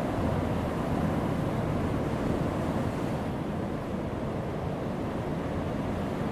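Heavy ocean waves breaking on a rocky shore: a steady rush of surf, its high hiss easing about halfway through.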